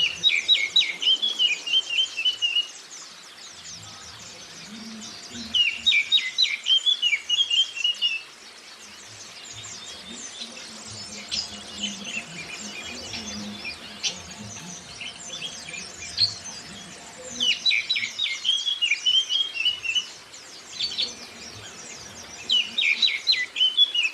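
Recorded song of an oriental magpie-robin and white-eyes. A loud phrase of rapid strokes that ends in a trill comes four times, at the start, about five seconds in, about seventeen seconds in and near the end, over constant high, thin twittering.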